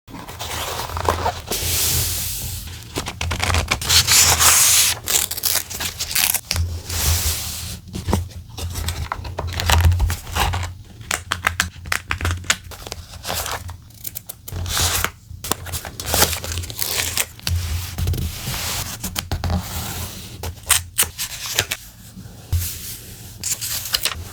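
Close-up paper-crafting sounds: paper and stickers being handled, torn and cut with scissors, in irregular rustles, scratches and sharp snips.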